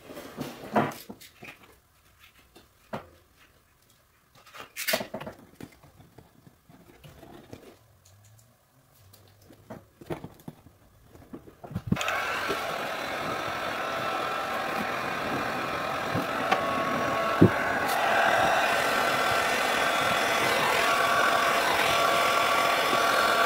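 Scattered handling clicks and rustles, then about halfway through a heat gun switches on. Its blower runs steadily with a faint whine while it heats wrap laid over a cracked snowmobile cab panel.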